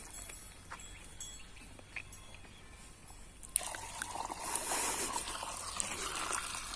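Water being poured into a monoblock pump's suction pipe to prime it, a steady rush that starts suddenly about halfway through after a few faint clicks. The pour is dung-mixed water, used because the worn foot-valve washer no longer holds the water column.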